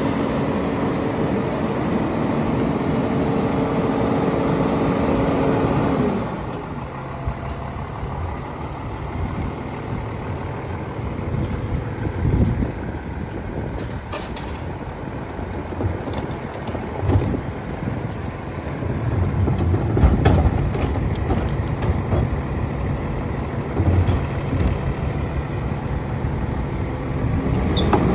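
Lodal side loader garbage truck's engine running at raised speed with its hydraulic packer working, dropping to idle about six seconds in. It then idles under scattered clanks and knocks at the loading hopper. Near the end the engine speeds up again as the next packing cycle starts.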